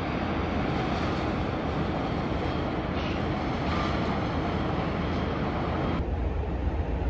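Steady outdoor din with a low hum underneath, like wind and distant traffic; its higher part drops away abruptly about six seconds in.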